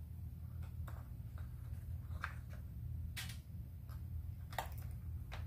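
Light clicks and taps of small plastic and metal parts being handled and fitted during hand reassembly of a Zenoah G3800 chainsaw's carburetor area, about half a dozen separate clicks over a steady low hum.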